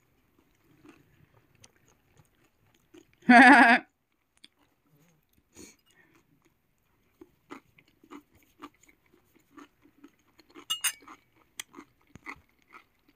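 A cat meows once, a short wavering call about three seconds in. Later a person chews pickles close to the microphone: a scattered run of small crunches and clicks.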